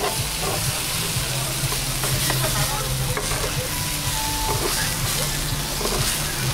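Kao leng mian, grilled cold-noodle sheets with egg and sauce, sizzling steadily on a hot flat griddle. Metal scrapers click and scrape against the griddle now and then as the roll is cut and pushed together.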